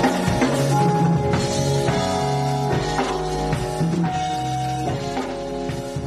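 Live band playing: a drum kit keeping time under sustained keyboard chords and bass, growing quieter toward the end.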